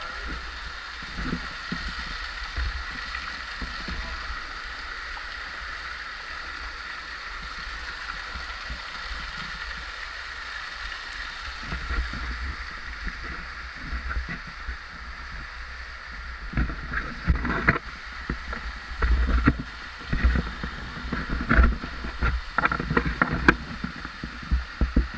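Steady rush of water running through a cave passage. From about two-thirds of the way through, irregular thumps and splashes of someone walking or wading through the water.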